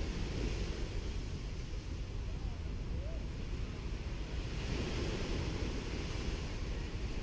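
Gentle sea waves washing onto a sandy beach, with a steady low rumble of wind on the microphone underneath; one wash swells louder about two-thirds of the way through.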